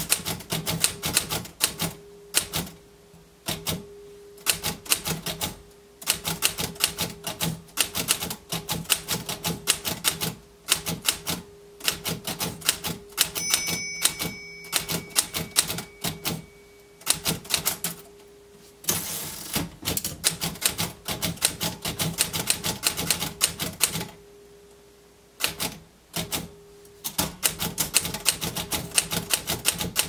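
Royal manual desktop typewriter being typed on: rapid runs of sharp key strikes hitting the platen, broken by short pauses, with one longer pause about two-thirds of the way through.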